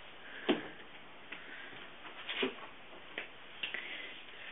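Handling sounds: about five scattered light knocks and clicks over four seconds, as products and packaging are picked up and moved about.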